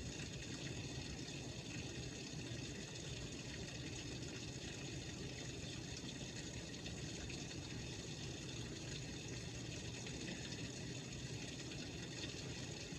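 Steady rain falling during a thunderstorm, an even, unchanging noise.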